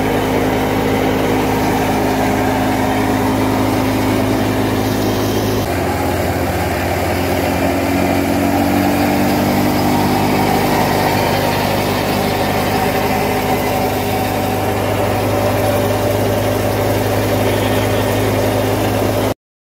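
Tractor-driven wheat thresher running steadily: the tractor engine's drone mixed with the thresher's churning as it separates grain from straw. The sound shifts slightly about six seconds in and cuts off suddenly near the end.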